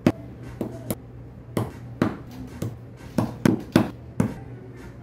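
A small hammer tapping wooden dowels into holes in a wooden strip: about nine sharp knocks at uneven spacing, some in quick pairs and triples.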